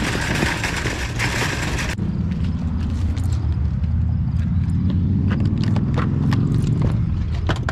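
Semi truck's diesel engine running, a low rumble whose pitch climbs slowly over several seconds as it picks up speed, with light clicks and rattles over it. For the first two seconds a loud rushing noise lies over it and then cuts off suddenly.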